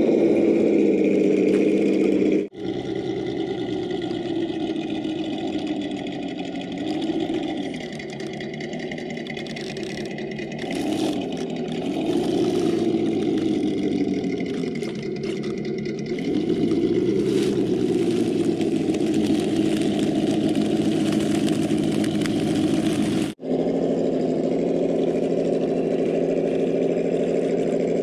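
Traxxas TRX-4 Defender RC crawler's motor and drivetrain running as it climbs rocks, a steady hum that rises and falls in pitch several times with the throttle. The sound briefly cuts out twice.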